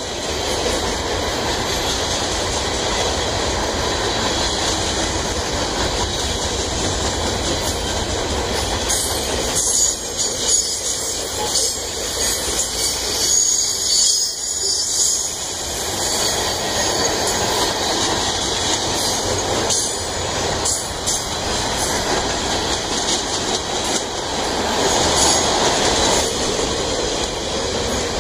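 CSX mixed freight train's cars rolling steadily past, with wheels clacking over the rail joints. The wheels squeal at times, most strongly through the middle of the stretch.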